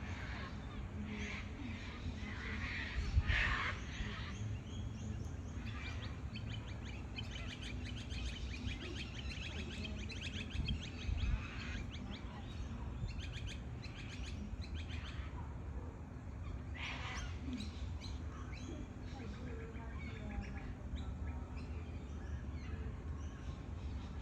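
Sulphur-crested cockatoos calling with harsh screeches, the strongest about three seconds in and again around seventeen seconds, over a steady low rumble.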